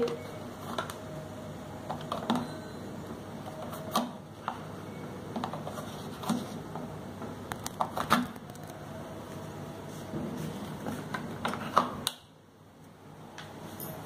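Plastic clicks and knocks of a Bosch dishwasher's detergent dispenser lid being handled, pushed shut and latched in the door. They come as scattered single clicks, the loudest about two-thirds of the way through, over a steady background hiss that drops away near the end.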